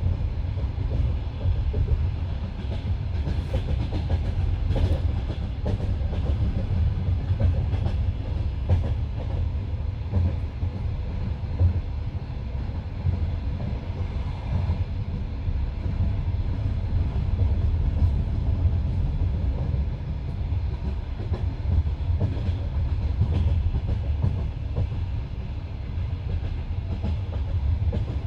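Wheels of a passenger train carriage clattering along the track at speed, heard from inside the carriage by the window. A steady low rumble runs throughout, with scattered sharp clicks as the wheels pass over rail joints.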